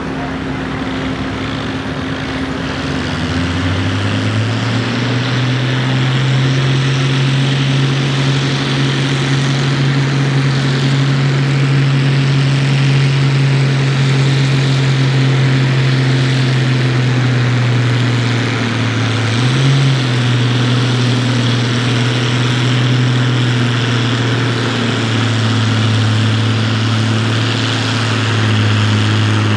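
Allis-Chalmers farm tractor engine pulling a weight-transfer sled under full load. The engine note climbs over the first few seconds and then holds steady. It dips and wavers a couple of times in the second half and settles a little lower near the end, as the sled bears down.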